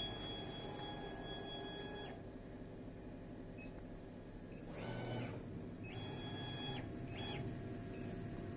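CO2 laser cutter's stepper motors whining as the head makes a few short moves: one about two seconds long at the start, a brief one near the middle, and two more near the end, over a steady machine hum.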